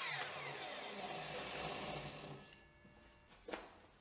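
A power saw coasting down after a cut, its motor whine falling in pitch and fading out about two and a half seconds in, followed by a single faint click.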